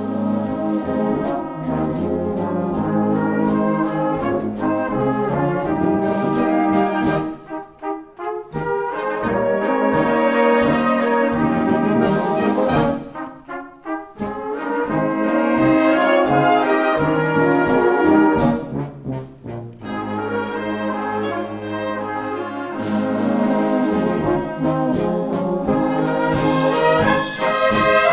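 Live wind band, a Bavarian Blaskapelle led by brass (trombones, trumpets, tuba), playing in phrases broken by three brief pauses.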